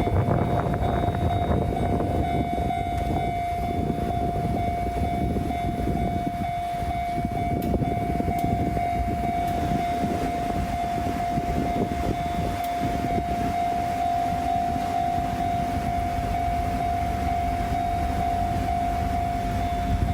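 A Japanese level-crossing alarm sounds a steady high tone throughout, over the low rumble of a passing train.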